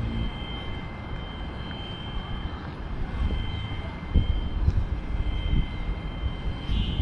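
Low, rough rumble of wind buffeting the microphone while walking, with a few footstep or handling thumps about four to five seconds in. Two thin, steady high whines run underneath.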